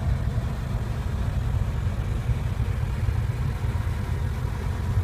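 Porsche Panamera GTS's V8 engine idling, heard from inside the cabin as a steady low rumble.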